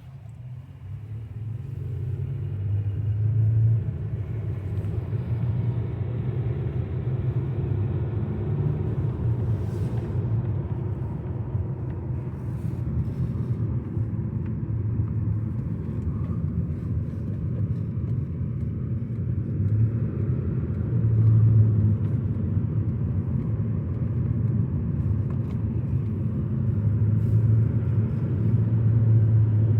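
Car driving, a steady low road-and-engine rumble heard from inside the cabin, growing louder over the first few seconds as the car picks up speed.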